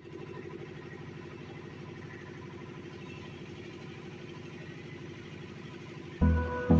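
Boat engine running steadily with a fast, even chugging pulse. Background music with a heavy beat cuts in near the end.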